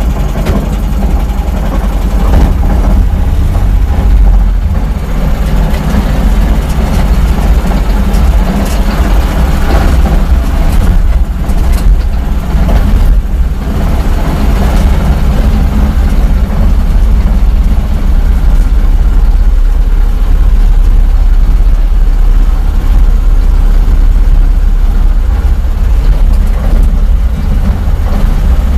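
A vehicle's carburetted engine running under load as it pulls away and drives, a loud, steady low drone with drivetrain and road noise.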